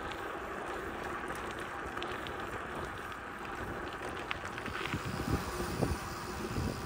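Wind rushing over the microphone and tyre noise from a bicycle riding along a dirt road, with a few light clicks and some low bumps about five seconds in.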